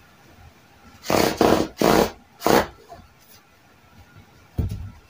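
Tailor's chalk rubbed across denim in three quick scraping strokes, then one more near the end, marking the trouser pattern lines.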